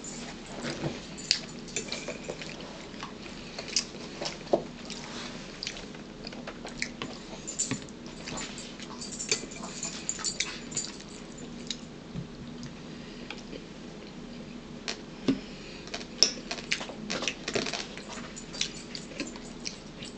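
Close-up eating sounds: chewing and mouth smacks, with a fork clicking against a bowl as spaghetti is twirled, over a faint steady hum.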